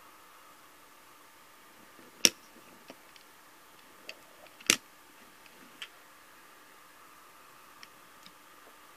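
Die-cast model cars clicking against the model car transporter and the wooden tabletop as they are handled: two sharp clacks about two and a half seconds apart, with lighter ticks in between and after.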